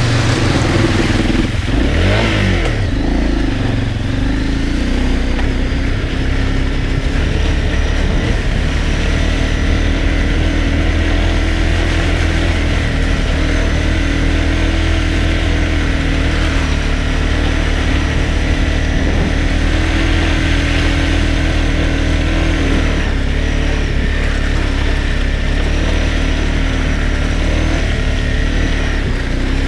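Honda CRF250L dual-sport motorcycle's single-cylinder four-stroke engine running steadily under way. The engine speed rises and falls briefly about two seconds in.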